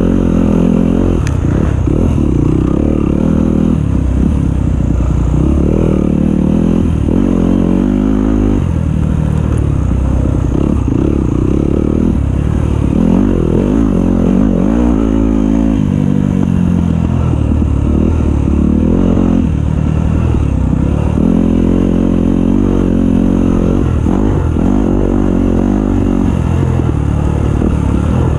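Dirt bike engine revving up and falling back again and again, every second or two, as the throttle is opened and shut through rough riding.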